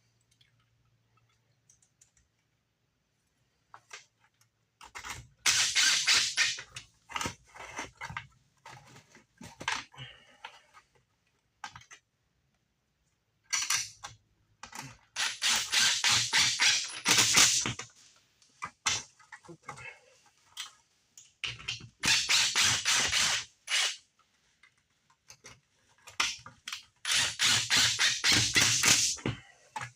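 Cordless impact driver driving screws, in four bursts of rapid clattering two to four seconds long, with a few single knocks between them.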